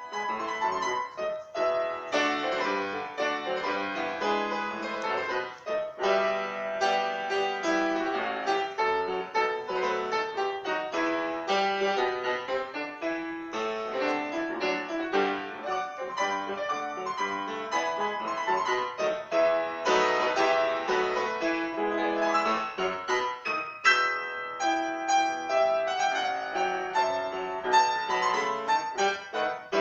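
Solo grand piano playing a classical piece, with a steady stream of struck notes and chords.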